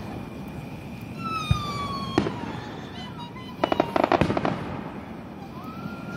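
Fireworks going off: a whistle falling in pitch, a couple of sharp bangs, then a quick burst of crackling pops with one heavier bang about four seconds in.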